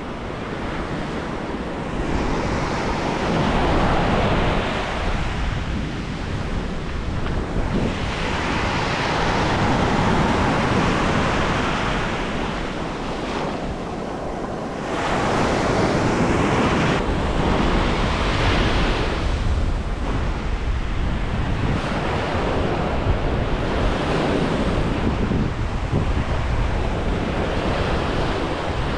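Ocean surf breaking and washing up the beach, swelling and falling back every few seconds, with wind buffeting the microphone.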